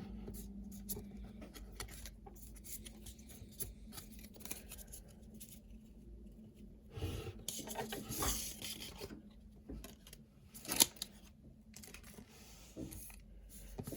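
Trading cards and a foil booster-pack wrapper being handled: light rubbing, scraping and clicking, with louder crinkling about seven to nine seconds in and a sharp snap near eleven seconds.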